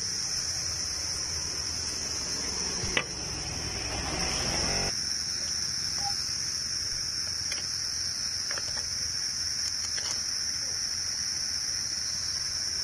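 Steady high-pitched chirring of insects such as crickets throughout. A single sharp click comes about three seconds in, and a few faint ticks of hand tools follow later.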